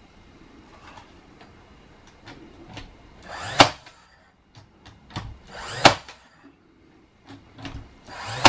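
Cordless battery nail gun firing three times into wood, roughly two and a half seconds apart, the last near the end. Each shot is a brief rising whir ending in a sharp crack as the nail drives home.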